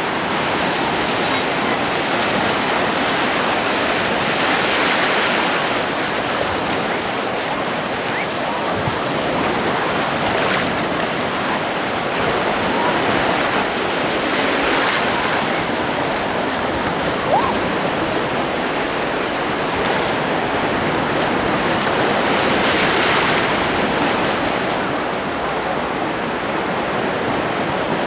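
Small sea waves washing and splashing in shallow water at the shoreline: a steady rush that swells louder a few times.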